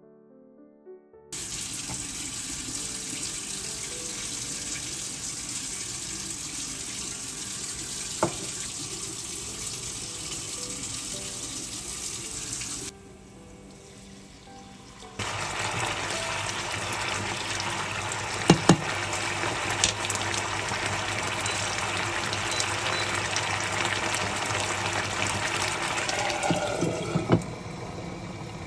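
Rice sizzling in a hot nonstick frying pan as it is stirred with a wooden spoon, with an occasional click of the spoon on the pan. After a short quieter gap, water hits the hot pan and the rice hisses and bubbles, louder than before.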